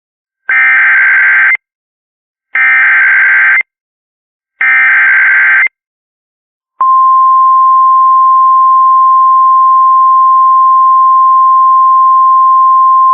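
Emergency Alert System SAME header: three one-second bursts of screeching digital data tones, about a second apart. They are followed by a long, steady single-pitch NOAA Weather Radio 1050 Hz attention tone over a faint hiss, marking the start of a weather warning broadcast.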